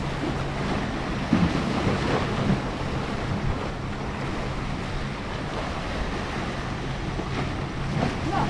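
Sea waves washing and splashing against breakwater rocks, with wind buffeting the microphone and a faint low steady hum underneath.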